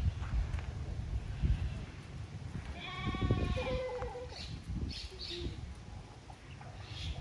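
An animal's bleat-like cry, one wavering call about three seconds in that ends on a short held note, over a low rumble.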